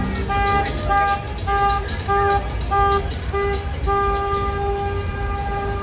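A horn sounding in a run of short, evenly spaced blasts, about two a second, then held in one long blast near the end, over the low rumble of street traffic.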